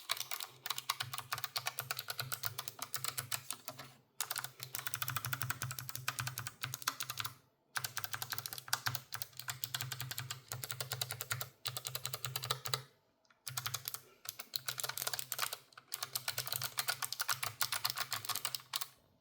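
Logitech G915 X low-profile keyboard with GL Blue clicky switches being typed on fast: quick runs of sharp key clicks, broken by three short pauses, over a steady low hum.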